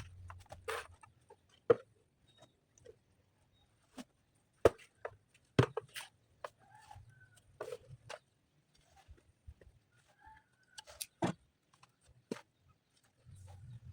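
Chickens clucking in short calls, between scattered sharp knocks a few seconds apart.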